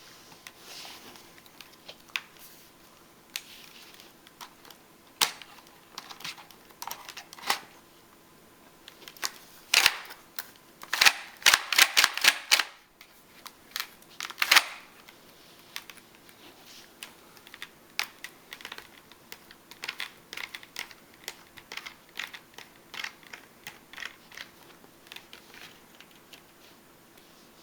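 Paper model shotgun being taken apart by hand: scattered light clicks and taps of stiff paper parts, with a louder run of quick clicks and rattles in the middle.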